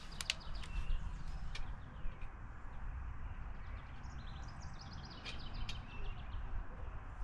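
Small birds chirping in quick repeated runs over a steady low outdoor rumble, with a few sharp faint clicks.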